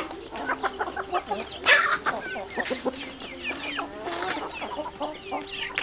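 A flock of domestic chickens, roosters and hens, clucking and chirping as they feed, many short calls overlapping. One louder, harsher burst stands out nearly two seconds in.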